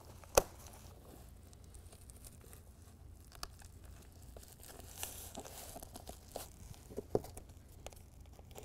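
Quiet handling of adhesive hook-and-loop strips on a molded carpet bed liner: scattered small clicks and rustles, with a brief tearing hiss about five seconds in as tape backing is peeled.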